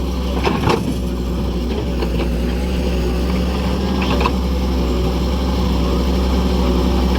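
A steady engine running at an even speed, with a couple of short knocks over it.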